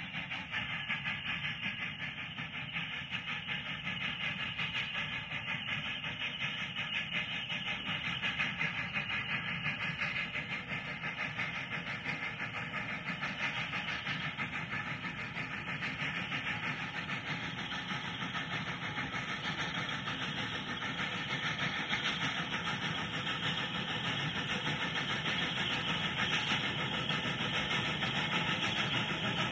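Narrow-gauge train running: a steady, continuous mechanical noise with no break, getting a little louder toward the end.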